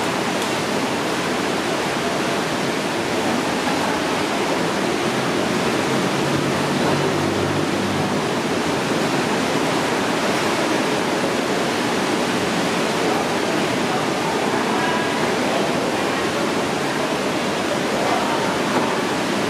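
A steady, even rushing noise that holds the same level throughout.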